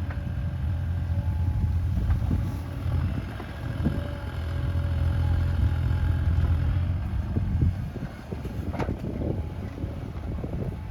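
Bobcat E37 compact excavator's diesel engine running while digging hard soil, its drone swelling and easing as the load changes, with a sharp knock about nine seconds in.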